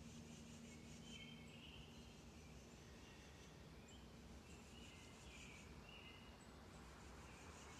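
Near silence in the open air: faint bird chirps come a few times over a faint, pulsing high insect buzz and a steady low hum.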